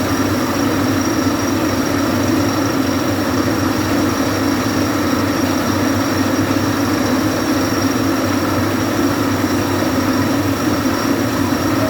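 Water-well boring rig's engine running steadily, a loud, even mechanical drone with no change in pace.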